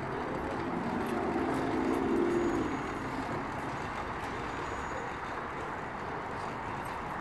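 Steady outdoor traffic noise with a motor vehicle's engine passing close by, loudest about two seconds in and fading by three seconds.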